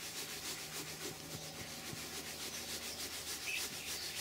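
Damp microfibre cloth rubbed in quick circles over a leather car seat, working leather cleaner into it: a steady run of quick, soft swishes.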